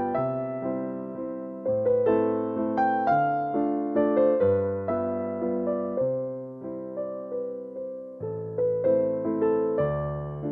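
Background music played on an electric piano: gentle chords and melody notes that strike and fade.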